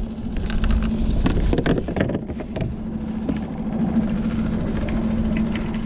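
A steady engine hum at one pitch over low wind rumble, typical of a small boat's motor idling. A few light clicks and knocks from handling tackle come in the first three seconds.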